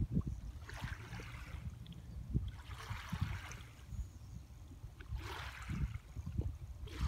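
Small waves lapping on a sandy shore: a soft wash that swells and fades every couple of seconds, over a steady low rumble.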